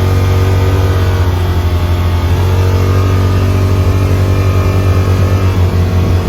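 ATV engine running under way, a steady low drone that takes on a pulsing flutter about two seconds in.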